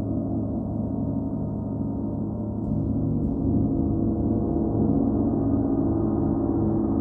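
38-inch Paiste gong ringing in a sustained, dense wash of many overlapping tones, swelling slightly a few seconds in.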